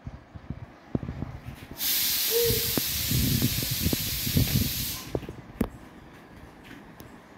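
A loud, steady hiss that starts and stops abruptly and lasts about three seconds, with light knocks and clicks of movement around it.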